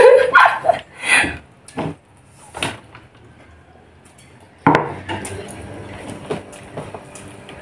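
Ceramic dishes knocking on a table as two people eat rice with their hands: a few light clinks, then a sharper knock a little over four and a half seconds in as a small ceramic bowl is set down, followed by a faint steady hum.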